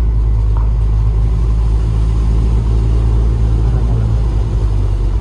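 Mahindra jeep's engine running steadily as it drives, a loud, even low drone.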